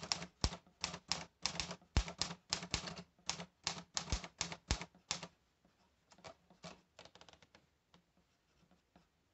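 Typewriter typing: about twenty keystrokes, each a sharp clack, at about four a second, then a few fainter clicks before it stops.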